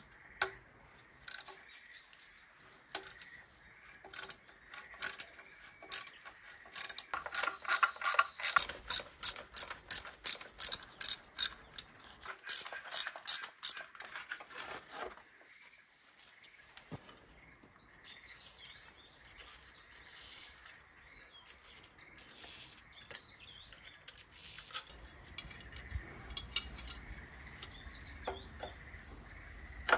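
Hand ratchet clicking in runs as bolts on a rusty engine's exhaust-manifold heat shield are worked loose, the clicks coming fastest and loudest in the middle stretch and sparse otherwise.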